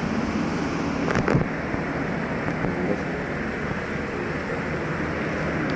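Steady rushing background noise with a brief louder sound about a second in.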